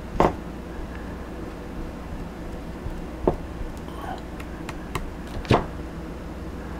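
A few short, sharp taps and clicks of a paintbrush against a resin jar while resin is brushed onto a fiberglassed wing, over a steady low room hum. The loudest taps come about a quarter-second in and about five and a half seconds in.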